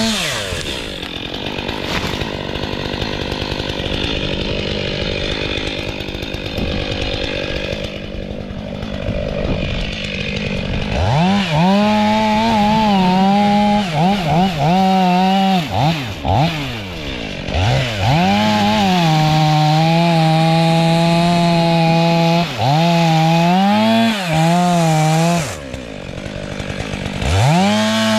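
Fuel-injected two-stroke STIHL MS 500i chainsaw cutting into wood for about the first ten seconds. The engine then revs high with the throttle repeatedly let off and reopened, its pitch dipping and climbing again several times.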